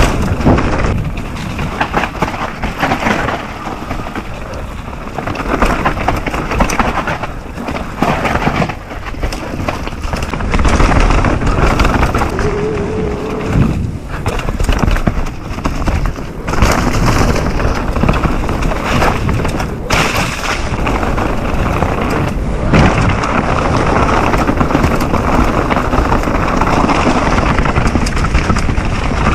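Mountain bike descending a rough enduro trail: tyres rolling and skidding over dirt and rocks, with constant rattling and frequent thumps as the bike hits bumps.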